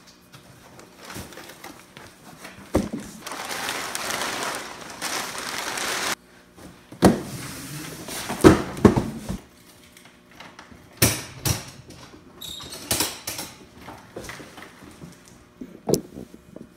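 A plastic tarp rustles for a few seconds as it is pulled back. Cardboard boxes and stored gear are then shifted, giving several knocks and clunks, followed by a run of sharp clicks and rattles.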